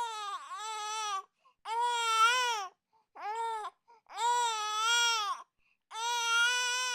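Infant crying: a series of wails, each about a second long, broken by short gaps for breath.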